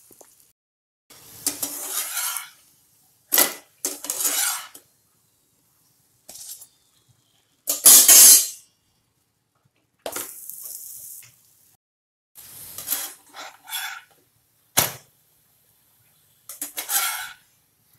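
A slotted steel spatula clinking and scraping against a nonstick frying pan and a plate while a paratha is turned and pressed, with short stretches of sizzling as it fries. It comes in separate short bits with silence between, and the loudest clatter is about eight seconds in.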